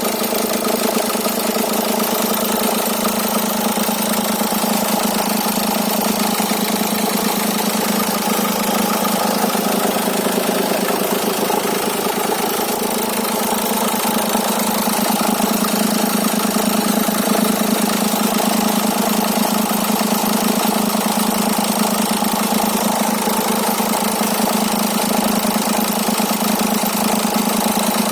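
Renault K9K 1.5 dCi diesel engine in a Dacia Logan, running steadily at idle. It carries an extraneous noise that the owner posts in order to identify it.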